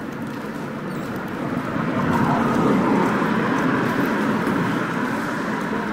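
A vehicle passing by, its noise swelling over the first three seconds and then slowly fading away.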